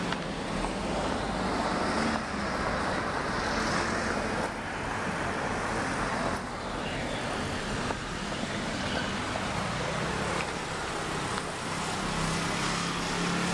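Road traffic noise: a steady wash of passing cars on a city street.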